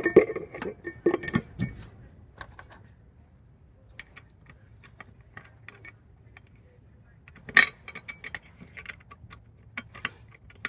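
Scattered light metallic clicks and clinks as the black steel air cleaner lid on an Oldsmobile 307 V8 is handled and seated, with one sharper click a little past the middle. The engine is off.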